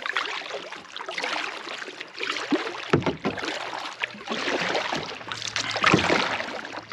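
Kayak paddle strokes dipping and pulling through lake water, a splashing swell about once a second, with two knocks, one near the middle and one near the end.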